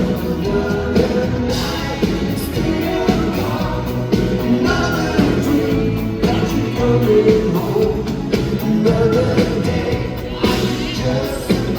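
Live pop song performed by a band, with a male lead singer singing over drums and backing instruments.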